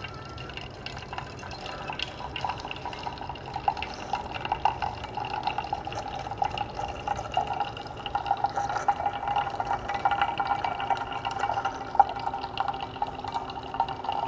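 Keurig K-Express single-serve coffee maker brewing, with hot coffee streaming and spattering into a cup. The sound is a steady trickle with fine splashes that grows slightly stronger as the cup fills.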